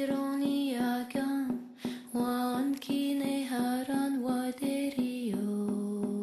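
Music: a woman sings a slow melody in long held notes, over an evenly plucked string instrument. The melody steps down to a lower held note near the end.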